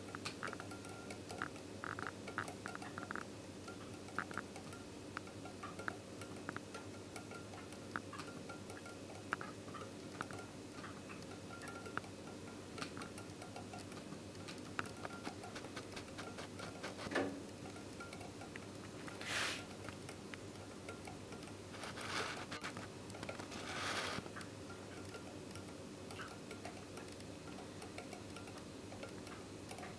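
Homopolar motor: a bent copper wire spinning around an AA battery on a coin and a stack of magnets, its loose ends clicking and scraping irregularly as they brush the coin and magnets. A few short, louder hissing noises come in the second half.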